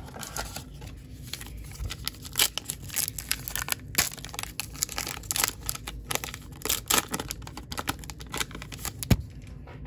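Baseball card pack wrapper being torn open and crinkled by hand: a dense run of sharp crackles and rips, ending in one sharp snap near the end.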